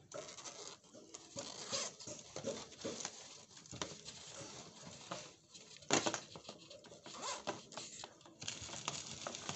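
Rustling and scuffing of a nylon motorcycle tank bag and its webbing straps being handled and tucked, with scattered small clicks and one sharper click about six seconds in.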